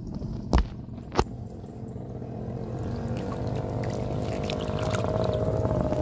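A motor vehicle's engine passing on the road, growing steadily louder as it approaches. Two sharp knocks come about half a second apart near the start.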